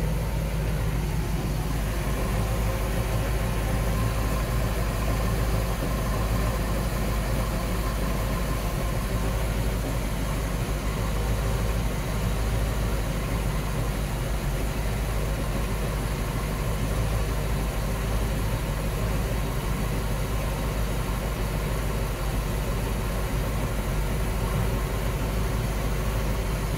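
Port-side Chevrolet 305 V8 marine inboard engine idling steadily with the engine hatch open. It settles down from a higher speed in the first second as the throttle is brought back.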